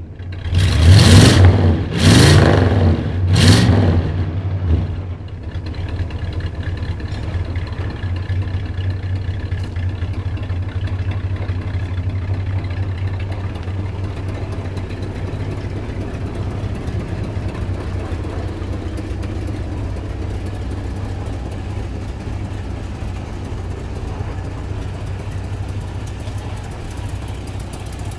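1958 Plymouth Belvedere's engine revved three times in quick succession in the first few seconds, then settling to a steady idle as it warms up after sitting unused for a while.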